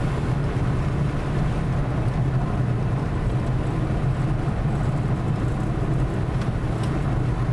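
Steady engine hum and road noise heard from inside a moving car.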